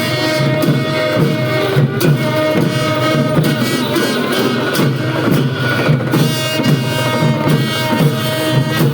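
Traditional Newar festival music with drums beating steadily, cymbals clashing and held melody notes over the top.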